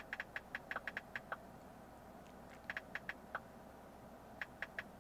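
Quick light clicks of typing on a smartphone's on-screen keyboard, in three runs: about a dozen rapid clicks in the first second and a half, a shorter run around the middle, and three more near the end.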